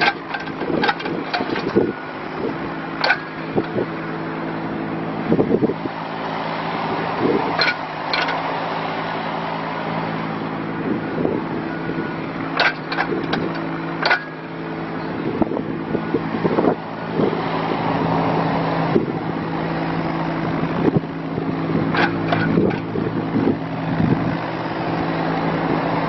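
Kubota K008-3 mini excavator's small diesel engine running steadily while the boom, arm and bucket are worked, with occasional sharp metallic clanks scattered through.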